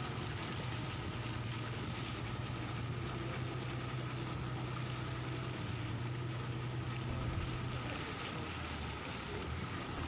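Boat engine running with a steady low hum over a rushing of wind and water; the hum drops in pitch about eight seconds in, as the engine slows.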